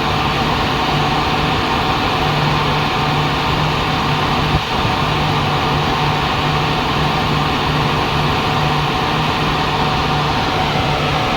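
Greaves CPCB-II diesel generator engine of an Indian Railways end-on-generation power car running steadily. A low hum within it comes and goes every second or so, in a sound the uploader calls faulty. There is a single short knock about four and a half seconds in.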